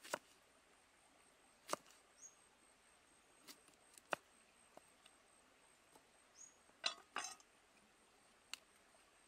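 Cleaver chopping through cauliflower stalk onto a wooden chopping block: sharp single knocks every second or so, with a short rattling double stroke about seven seconds in.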